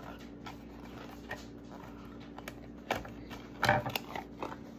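Small plastic toy packaging handled on a wooden table: scattered soft clicks and rustles, a sharp knock about three seconds in, and a louder rustle just after it.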